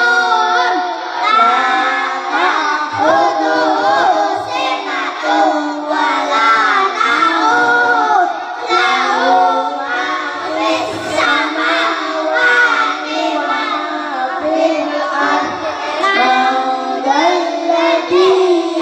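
A group of young boys chanting short Qur'anic surahs together in a melodic recitation, amplified through microphones, with long held notes rising and falling.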